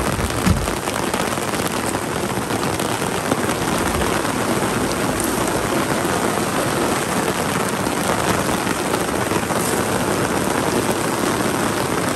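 Heavy rain falling steadily, a dense even hiss of drops. One brief low thump about half a second in.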